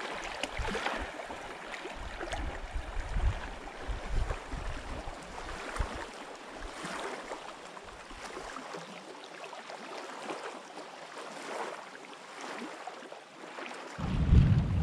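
Small lake waves lapping and splashing against shoreline rocks, a soft splash every second or two over a steady wash. Wind rumbles on the microphone in gusts through the first half and comes in loudly just before the end.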